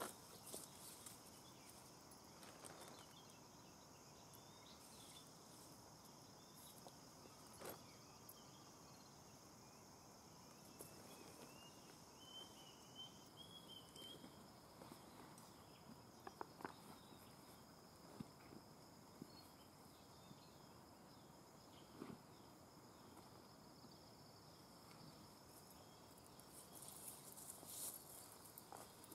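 Faint steady drone of forest insects in two high bands, one of which cuts off about halfway through, with scattered soft footsteps on dry grass and twigs.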